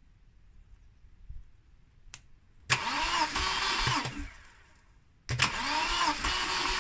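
Four-cylinder engine of a turbo Volvo being turned over by its starter motor in two bursts, the first lasting about a second and a half and the second starting about a second later. A click comes just before the first burst. This is cranking for a compression test on cylinder three, which reads about 9 bar, a good value.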